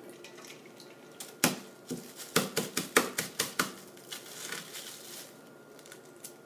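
A hard-boiled egg being cracked inside a plastic grocery bag: two sharp taps, then a quick run of about eight taps on the shell, followed by the plastic bag crinkling.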